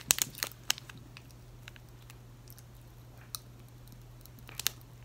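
Popping candy crackling in the mouth: a quick run of sharp pops in the first second, then a few scattered pops later, with some chewing.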